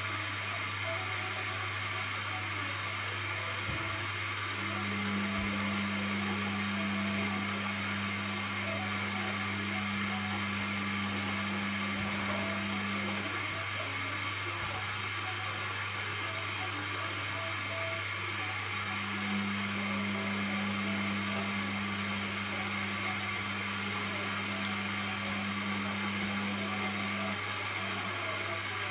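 Indesit front-loading washing machine tumbling a load of towels, its drum motor humming in two stretches of about eight seconds with a pause between them, over a steady low hum.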